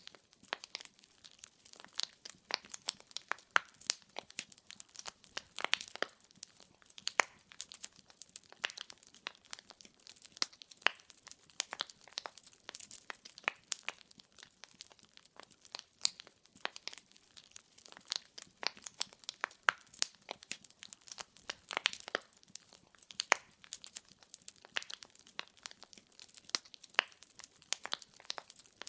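Firewood burning in a fireplace, crackling and popping continuously with many irregular sharp snaps over a soft hiss.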